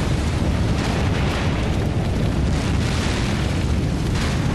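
Explosion sound for the Space Shuttle Challenger's breakup: a deep, continuous rumble with crackling through it, holding at an even loudness.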